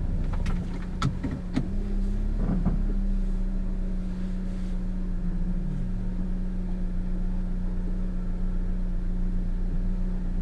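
Vehicle engine running with a steady low hum, with a few sharp knocks in the first couple of seconds and a brief dip in pitch about six seconds in.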